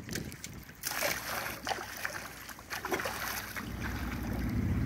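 Water splashing and churning in irregular bursts as a school of large fish thrash at the surface in a feeding frenzy. A steady low motor hum comes in near the end.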